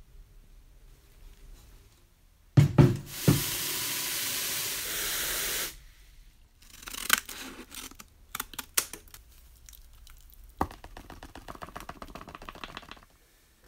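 A few knocks, then water rushing steadily into a tank for about two and a half seconds, stopping abruptly, as an electrolytic pickling bath is made up. Scattered clicks and light crackling follow.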